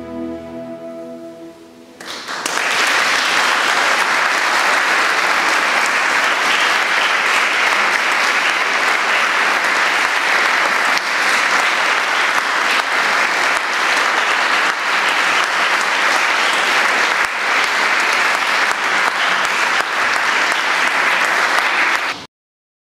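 The last held chord of the music fades out, and about two seconds in an audience breaks into steady applause, which cuts off suddenly near the end.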